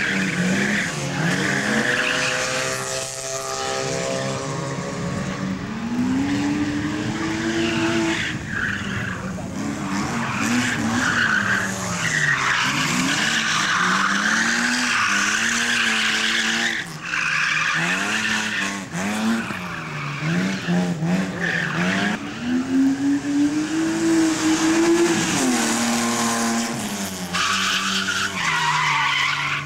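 Competition car on a slalom course, its engine revving hard and dropping back again and again through gear changes and lifts, with tyres squealing and skidding on the tarmac through the turns.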